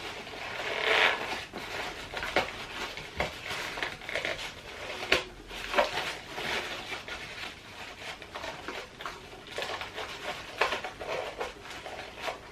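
A child's Nerf vest being fastened and handled: fabric rustling and scraping with small plastic clicks and knocks every second or so.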